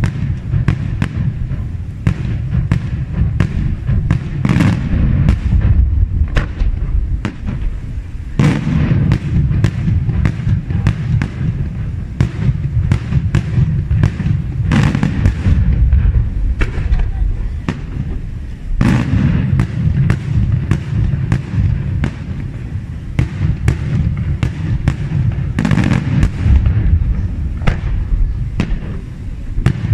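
Daytime aerial fireworks bursting in a continuous barrage: a dense, irregular string of sharp bangs, several a second, over a steady low rumble.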